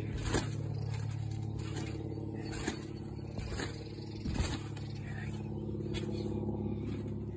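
A child's bounces, flips and landings thump on a trampoline mat, about five separate thumps, the strongest near the start and about four and a half seconds in. Under them runs a steady, engine-like low hum.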